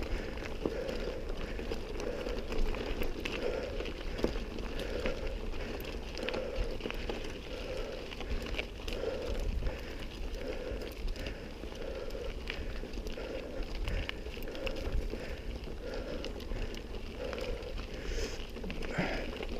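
Mountain bike rolling over a loose gravel dirt track: tyres crunching on stones, with many small clicks and rattles from the bike, over a steady low rumble. A faint pulse recurs about once a second.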